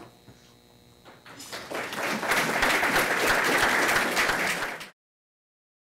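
Audience applause that builds up about a second and a half in, holds steady, and cuts off abruptly near the end.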